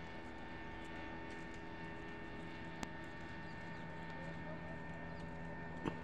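A distant speedboat's engine droning faintly and steadily across open water, with two small clicks, about three and six seconds in.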